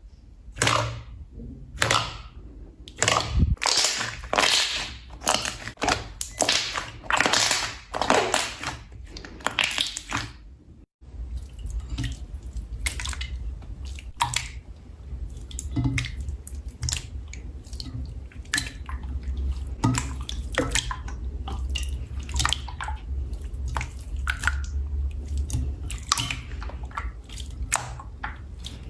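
Slime being squeezed and poked by hand: a run of loud wet squelches and pops, then, after a sudden cut about a third of the way in, a denser stream of small crackling pops.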